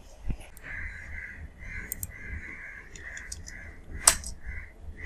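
A bird calling in the background, a run of short calls with one longer stretch, over a low hum. A single sharp click about four seconds in.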